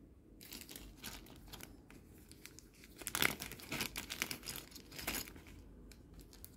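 Small clear zip-lock plastic bag crinkling in irregular bursts as it is handled, loudest around the middle, stopping about five seconds in.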